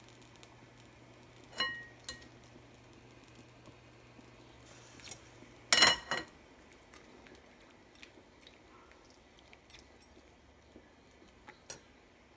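Metal kitchen tongs clinking against a ceramic bowl and the rim of a metal pan as raw shrimp are lifted into a pot of broth. A few sharp clinks, one ringing about one and a half seconds in and the loudest about six seconds in, with light taps between.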